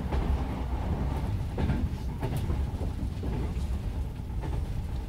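Inside a Japanese National Railways Yokosuka Line electric train running along the line: a steady low rumble from the running gear, with a few irregular sharp clicks and knocks.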